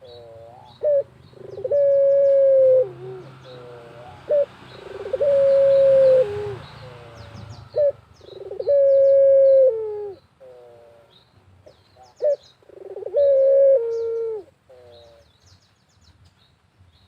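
Puter (ringneck dove) cooing, four times: each call is a short note or two, then a long held coo that drops in pitch at the end. Faint high chirps of small birds sound between the coos.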